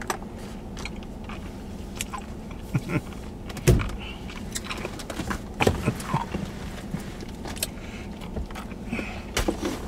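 A man enduring an extremely sour hard candy: scattered short grunts and mouth sounds, with knocks and creaks as he shifts in the car seat and grips the steering wheel, the loudest knock a few seconds in. A steady low hum from the car cabin runs underneath.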